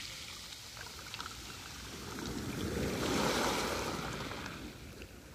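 Black Sea waves washing onto the shore: a wash of surf swells up about halfway through and then draws back and fades.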